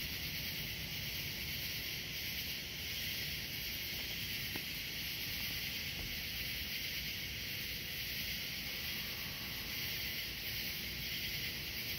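Steady evening insect chorus, an even high hiss without breaks, over a low rumble.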